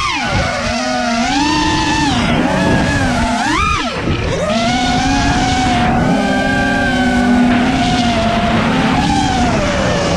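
Brushless motors of a 5-inch FPV freestyle quadcopter whining in flight, the pitch swooping up and down with the throttle. A sharp rise and fall comes a little under four seconds in, and the tone holds steadier for a stretch a couple of seconds later.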